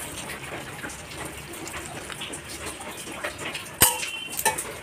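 Hot water pouring in a stream into a steel bowl of cut button mushrooms, then a sharp knock nearly four seconds in, with a smaller one just after.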